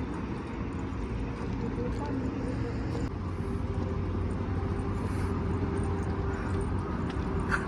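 Steady outdoor background noise, a low rumble and hiss, with faint voices in the distance.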